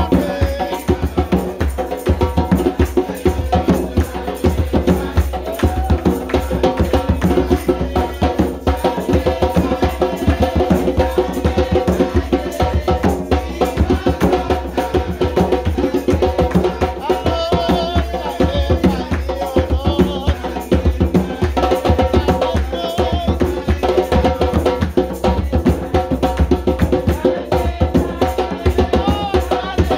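Church music driven by hand drums beating a steady, quick rhythm, with other percussion and held tones above.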